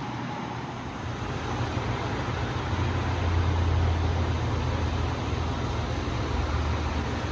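52-inch Harbor Breeze Geneva ceiling fan running: a steady rush of air with a low rumble that grows louder from about a second in.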